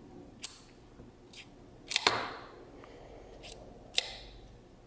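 Sharp metallic clicks, about five, from the spring-loaded stop-down and aperture levers of a Minolta MC Tele Rokkor-QF 200mm f/3.5 lens being flicked with a small screwdriver, the diaphragm snapping open and shut. The two loudest, about two and four seconds in, ring briefly.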